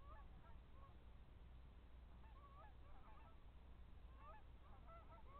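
A flock of geese honking faintly, many short calls overlapping, growing busier about two seconds in.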